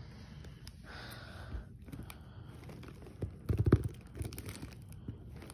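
Packing tape being pulled and torn off a cardboard shipping box, with rustling and scraping of the cardboard. A cluster of heavy knocks and rustling comes about three and a half seconds in. The tape is very strong.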